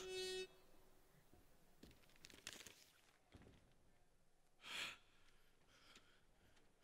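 Near silence, with a brief pitched note dying away at the very start and a single short sigh, a breathy exhale, a little under five seconds in.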